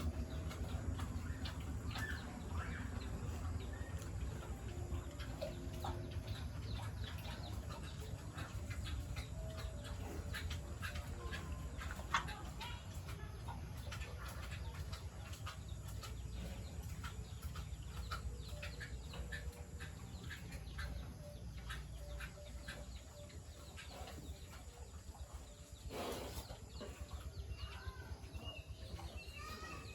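Farmyard animal and bird calls: clucking and short chirps, with many scattered small clicks over a steady low hum.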